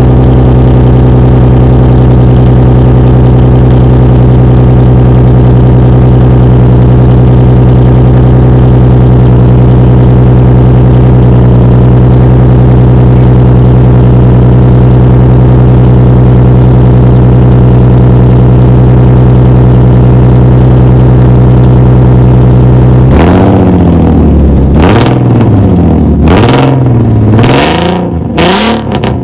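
Infiniti G35's 3.5-litre V6 engine running at a steady, unchanging speed, then revved up and down repeatedly in quick blips for the last few seconds, with some harsh crackle at the peaks.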